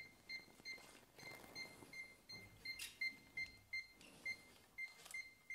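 UNI-T UT203 clamp meter's non-contact voltage detector beeping, short high-pitched beeps about three to four a second, as it is run along a mains cable. The steady beeping signals a live phase conductor under the jaw, on the stretch of cable before the break.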